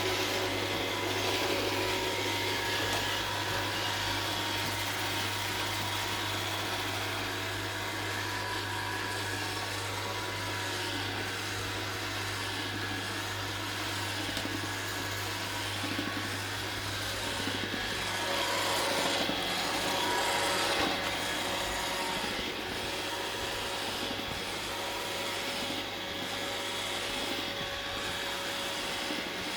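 iRobot Roomba 780 robot vacuum running, its suction motor and brushes making a steady drone with a constant low hum and a thin motor whine. The whine wavers in pitch for a few seconds about two-thirds of the way through.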